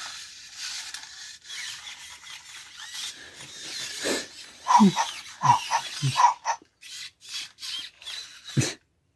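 Toy robot dog (robopet) giving short electronic barks: four in quick succession about halfway through, each falling in pitch, and one more near the end, after a few seconds of quieter rubbing noise.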